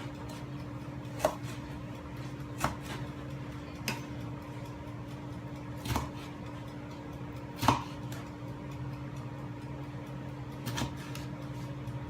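Kitchen knife cutting a green bell pepper on a cutting board: about six separate chops at uneven intervals, over a steady low hum.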